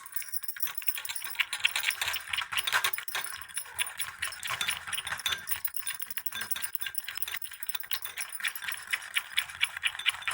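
Continuous rapid rattling and clinking of small hard objects, many clicks a second, starting abruptly.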